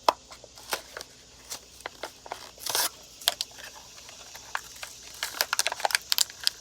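Hands handling and fitting a new low-beam headlight bulb: scattered small clicks and taps, with a short rustle about three seconds in and a quick run of clicks near the end.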